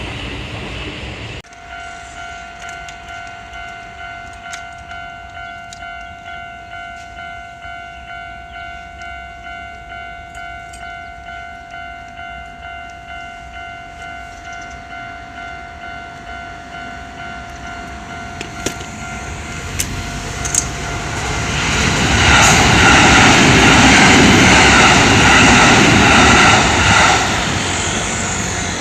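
Japanese railroad crossing warning bell ringing steadily in evenly repeated dings. About twenty seconds in, a Kintetsu train passes over the crossing with a loud rush of wheel and rail noise, the loudest sound, which eases off near the end.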